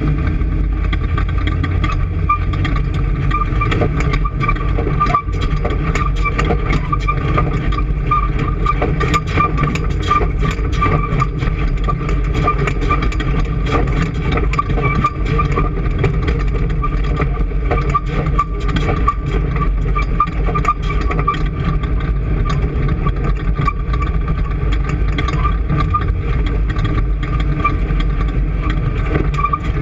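An engine running steadily, with a pulsing mid-pitched whine over a low rumble.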